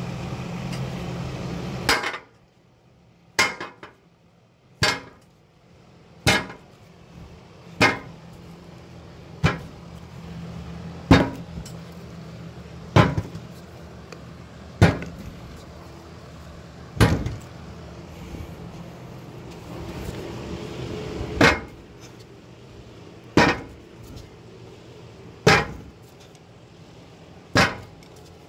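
Repeated sharp knocks, about fifteen in all, each a single hard hit about every one and a half to two seconds. A steady hum runs under the opening two seconds and stops.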